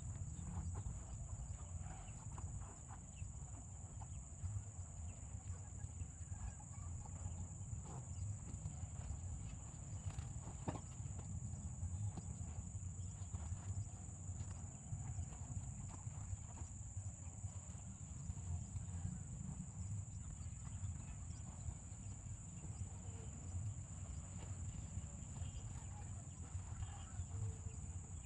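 Steady, unbroken high-pitched insect chorus, over a low rumble and a few scattered faint clicks.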